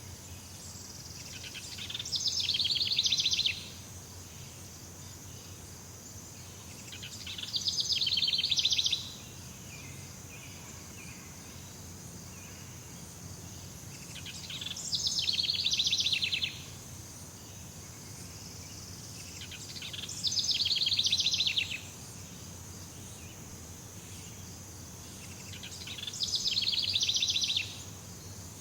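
Jungle ambience: a steady high insect drone, broken five times by an animal's fast pulsed trill that builds over about a second and a half and then cuts off sharply.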